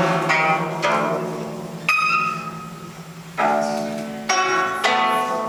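Guzheng (Chinese zither) played solo: a run of plucked notes, each struck sharply and left to ring and fade, over a low note that keeps sounding.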